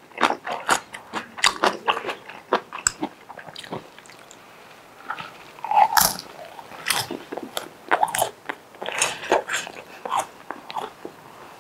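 Close-miked chewing and biting as a mouthful of luosifen (river-snail rice noodles) is eaten, picked up by a clip-on lapel microphone: many short, irregular mouth clicks and smacks, with a brief lull about four seconds in.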